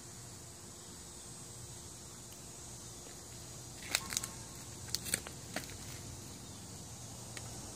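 Steady high-pitched outdoor hiss, with a quick run of about six sharp clicks between four and five and a half seconds in.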